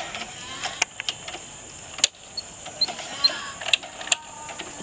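A motorcycle being cranked and failing to start, with several sharp clicks.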